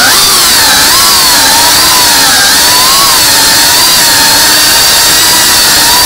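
Tiny whoop FPV quadcopter's motors and propellers whining loudly, the pitch wavering up and down together as the throttle changes.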